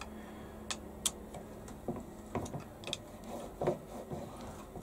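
Scattered light metallic clicks and a few duller knocks from a hand tool and a milling slide being fitted onto a lathe's cross slide, about eight or nine irregular taps in all.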